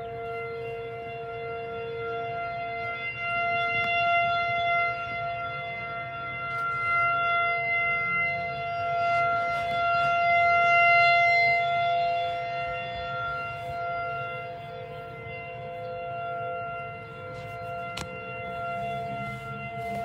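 Outdoor tornado warning siren sounding a steady wail of several held notes. It swells louder about four seconds in and again near the middle, then eases, signalling a tornado warning.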